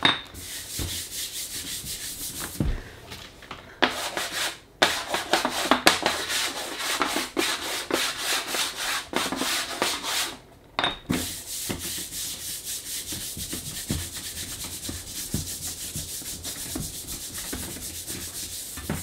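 Chalk rubbed back and forth over a chalkboard in rapid scratchy strokes, with a few brief pauses. Near the end it turns softer as a palm smears the chalk dust across the board, dulling a brand-new chalkboard's finish.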